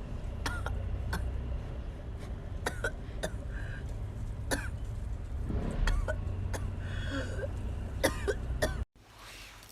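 A person's brief throat sounds, like coughs and throat-clearing, mixed with sharp mouth clicks over a steady low hum. The sound cuts off abruptly near the end.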